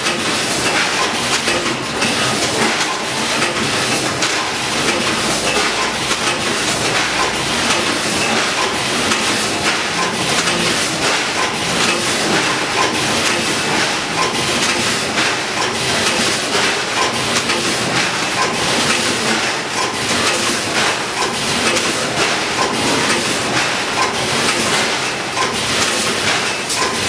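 VFS5000FS vertical form-fill-seal packaging machine and its bag-output conveyor running steadily: a continuous clatter of many rapid clicks over a constant hiss.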